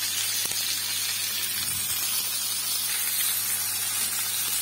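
Coated chicken strips sizzling in hot oil in a frying pan, a steady hiss.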